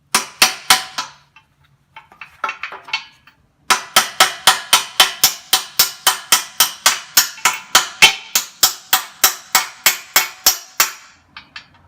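Hammer blows on a steel spacer, driving a tight backhoe bucket pin out through its bore. A few ringing metal strikes, a pause, then a steady run of about three to four blows a second.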